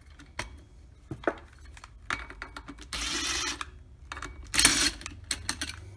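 Loosened bolts being taken out of a snowmobile primary clutch cover: light metal clicks as they are handled, and two short rasping bursts, the second louder, about three and four and a half seconds in.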